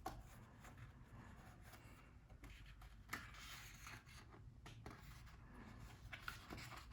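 Faint rustling and soft clicks of a book's paper pages being handled and turned, with a slightly louder rustle about three seconds in.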